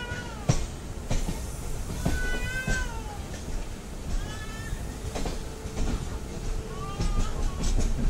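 Passenger train rolling slowly out of a station: a low rumble with irregular clicks of wheels over rail joints and points. Over it, a high cry that rises and then falls in pitch, each about a second long, comes four times.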